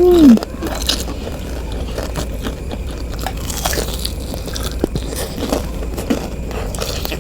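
Close-up chewing of a jumbo cireng (fried tapioca snack): irregular wet mouth clicks and light crunches of the fried dough. Right at the start a short hummed "mm" rises and falls in pitch.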